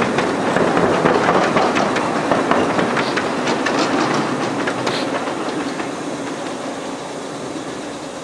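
Cars of a miniature ride-on railway train clicking over rail joints as they roll past, the clicking thinning out and the sound fading after about five seconds as the train moves away.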